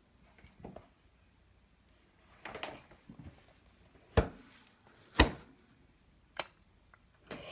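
A sheet of pencil-drawing paper rustling and sliding on a desk as hands shift it around, with three sharp taps in the second half.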